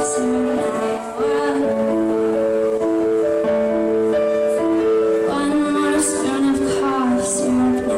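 A teenage girl singing live over acoustic accompaniment, holding long notes.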